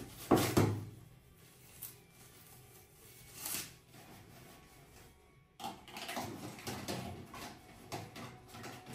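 Two sharp knocks just after the start, a softer one partway through, then from a little past halfway a run of small knocks and clatter, like things being handled around a drawer or cupboard.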